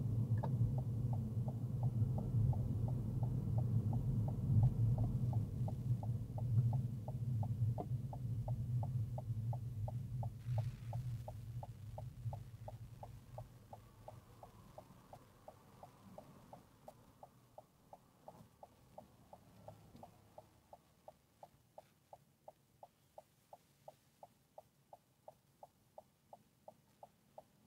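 Car's turn-signal indicator ticking evenly, set for a right turn. Under it the low rumble of the car rolling on the road fades away during the first half as the car slows to a stop, leaving the ticking on its own.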